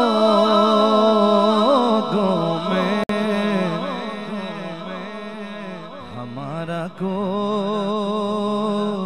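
A man's voice, amplified through a microphone, singing a naat in long drawn-out wordless notes with a wavering vibrato and pitch glides. The sound cuts out for an instant about three seconds in.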